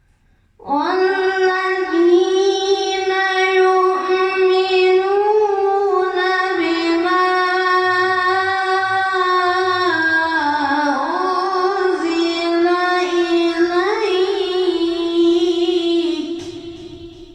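Quran recitation: the reciter's voice holds one long melodic phrase in tajweed style, with small ornamental turns in pitch. It starts just under a second in and fades out near the end.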